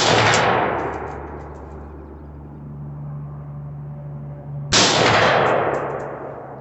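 Two AR-15 rifle shots about five seconds apart, each a sharp crack followed by a long echo fading out over a couple of seconds.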